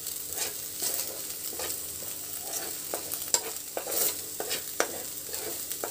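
Ginger paste sizzling in ghee in a nonstick kadhai as a slotted spatula stirs and turns it, with a steady frying hiss and irregular scrapes and taps of the spatula against the pan.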